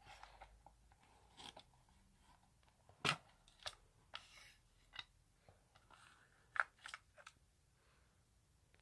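Plastic cassette tape case being handled and opened and the cassette lifted out: a string of sharp plastic clicks and taps, the loudest about three seconds in and again past six and a half seconds, with brief rustling between them.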